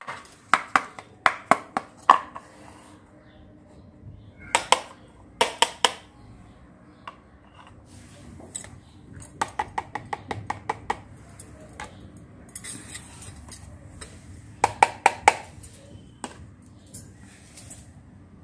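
Small plastic toy kitchen pieces (toy stove, pot and lid, blender) clicking and clattering as they are handled and set down on a hard tiled floor, in four bursts of quick sharp clicks a few seconds apart.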